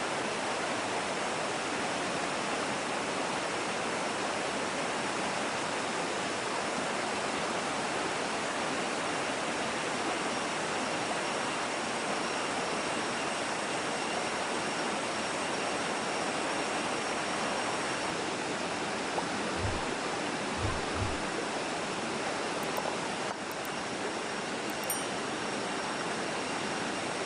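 Steady rush of a forest stream and waterfall, with a few soft low thumps about twenty seconds in.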